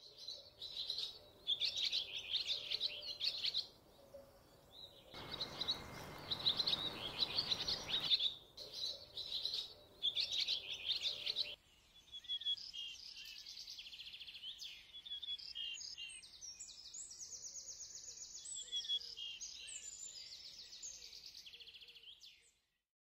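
Songbirds singing in repeated bright phrases. About five seconds in, a steady rushing noise runs for about three seconds. A little before halfway the birdsong changes to a higher, faster song.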